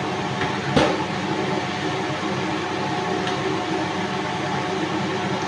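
Steady whir of a kitchen ventilation fan with a few held hum tones, and a single sharp knock about a second in.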